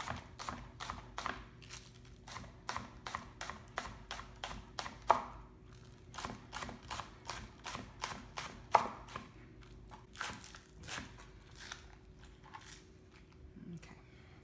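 Chef's knife slicing green onions thinly on a plastic cutting board: a steady run of quick chops, about three a second, with a few harder knocks. The chopping thins out near the end.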